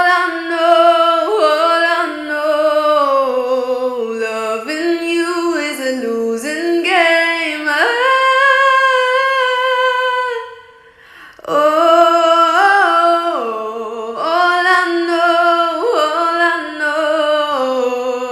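Singing: a single voice singing a gliding melody, with a short break about eleven seconds in.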